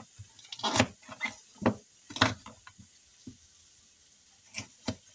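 Kitchen knife chopping bell peppers on a wooden cutting board: irregular knocks of the blade striking the board, several in quick succession, then a pause of over a second before two more near the end.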